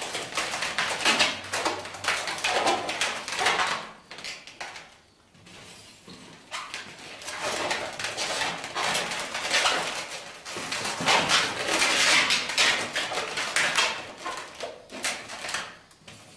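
Long latex modelling balloons (260s) squeaking and rubbing against each other and the hands as they are twisted and pushed into place, in an uneven run of squeaks that eases off briefly about four seconds in.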